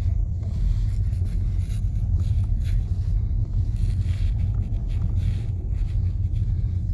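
Steady low rumble of a vehicle driving, heard from inside: engine and tyre noise on snow-covered streets.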